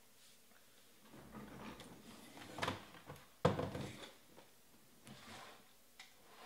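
Rustling and a few knocks from things being handled on a table, the loudest knock about halfway through.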